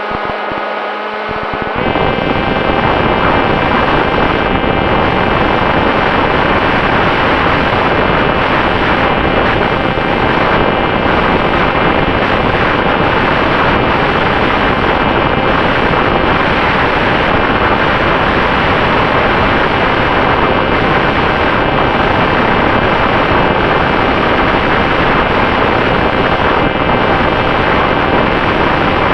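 Electric motor and propeller of an FX-61 flying wing in flight, a steady whine heard under loud wind rush on the microphone. About two seconds in, the wind noise jumps up sharply and stays loud.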